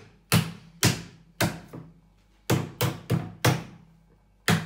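Open hand slapping a raw beef steak on a wooden cutting board. About eight sharp, loud slaps come in two quick runs with a short pause about two seconds in.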